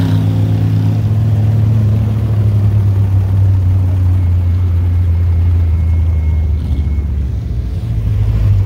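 Classic Ford Bronco engine running steadily at a low pitch, easing off briefly near the end.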